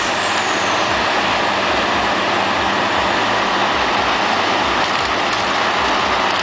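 Peterson Pacific 5710C horizontal wood grinder running under load, a loud, steady grinding noise as it chews through wood scraps.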